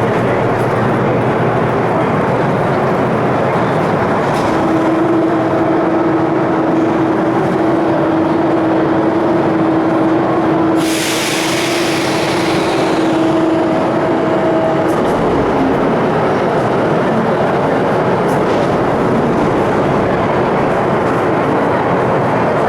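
Mexico City Metro train running, heard from aboard: a steady dense rumble of running noise. A held whine joins it for about ten seconds in the middle, and about halfway through comes a sudden hiss of air that fades over a couple of seconds.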